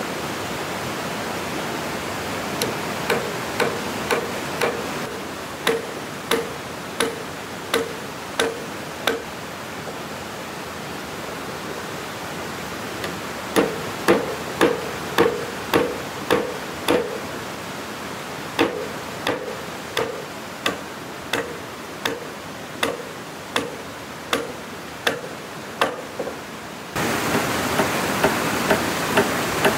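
Hammer blows on wood in runs of regular, sharp strikes, about two a second, each with a short ring. There is a pause of a few seconds midway. A steady rushing background noise runs throughout and grows louder near the end.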